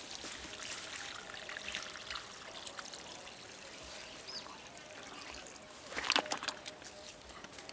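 Water sloshing and trickling in a plastic bucket of live caught fish as it is tipped onto its side and set back upright, with scattered small knocks and a louder burst of splashing and knocking about six seconds in.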